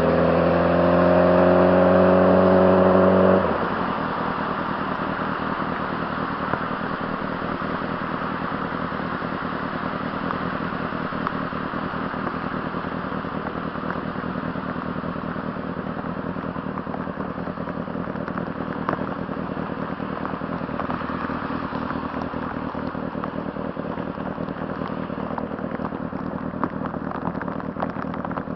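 Honda CBR600RR inline-four engine pulling with steadily rising revs, then shut off abruptly about three and a half seconds in. After that, a steady rushing noise with fine crackle continues.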